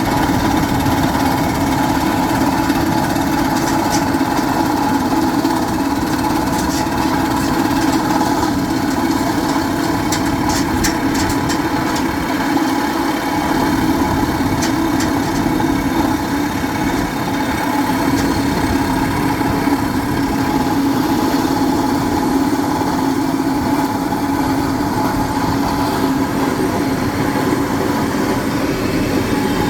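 Hard rock drilling rig running with a steady mechanical drone, with a few faint ticks about ten to twelve seconds in.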